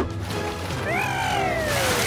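A cartoon falling-whistle sound effect over background music. Starting about a second in, one long whistle slides slowly down in pitch, marking the flight of an object fired from a launcher.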